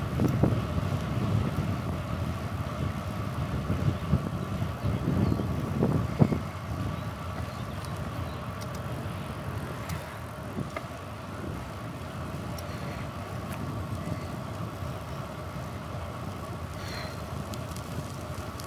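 Sounds of riding a bicycle: wind buffeting the microphone and tyre and road rumble, stronger in the first few seconds and then easing to a steadier run, with a faint steady hum throughout.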